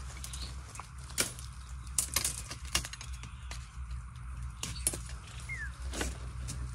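Dry bamboo leaf litter and twigs crackling and snapping in irregular clicks as a person crouches and works in it.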